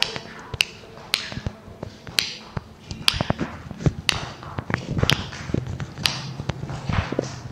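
Finger snaps and dance footsteps on a wooden floor: sharp clicks about once a second, unevenly spaced, with softer thuds of the shoes landing in between.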